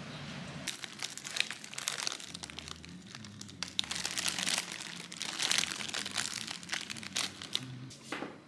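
Crinkling and rustling of something being handled, in irregular bursts with sharp clicks. A steady low rumble cuts out under a second in.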